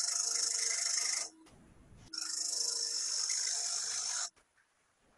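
Spindle gouge cutting into hard spalted wood spinning on a wood lathe: a high hissing scrape in two passes of about two seconds each, with a short break between.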